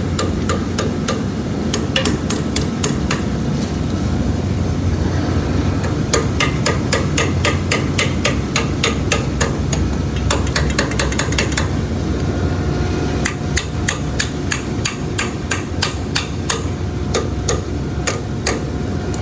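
Rapid, repeated whacks on a filter-system pipe clogged with sand, several blows a second with a short pause partway through, to knock the blockage loose. A pump hums steadily underneath.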